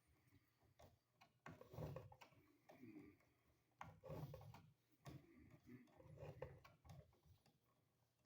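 Faint scattered clicks and rubbing of electrical wires and hand tools being handled, with no steady sound.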